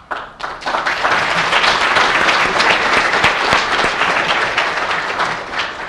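Audience applauding, many hands clapping at once. It builds quickly at the start and tapers off near the end.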